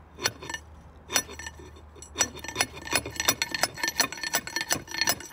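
Light metal-on-metal tapping: a hammer striking a steel punch to drive a grease-covered part out of an old Reed vise, each blow a short ringing clink. The blows come a few at a time at first, then quicken to about three a second, and the part is coming out easily.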